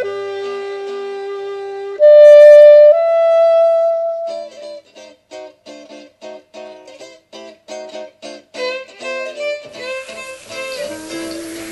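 Instrumental background music: a few long held notes, the loudest starting about two seconds in, then a run of short, quick notes at an even pace.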